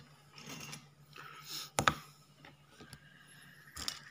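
Soldering iron and tools handled and set down on a workbench: brief rustling scrapes, a sharp click about two seconds in, and a few more clicks near the end, over a low steady hum.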